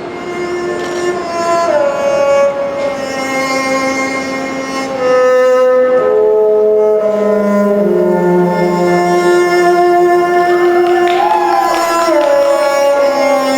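Slow instrumental music of long held notes. The pitch slides between notes about two seconds in and again near the end.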